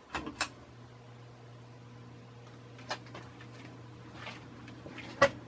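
A spinner-style ceiling fan is switched on with a couple of clicks. Its motor then sets up a steady low hum as it starts turning. A few sharp clicks come on top, the loudest just after five seconds in.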